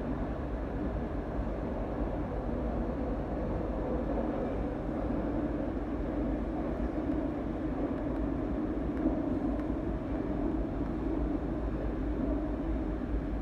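Lisbon Metro train running steadily on the rails: a continuous, even rumble.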